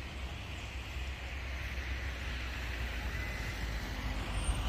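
Wind on the microphone: a steady low rumble with an even hiss above it.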